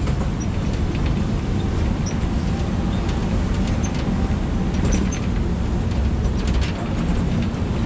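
Safari truck driving along: a steady engine and road rumble, heavy in the bass, with a few faint clicks and rattles.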